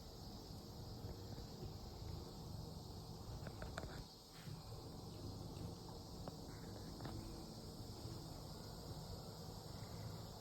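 Steady insect chorus, a continuous high shrill hum, over a low steady rumble, with a few small clicks about four seconds in.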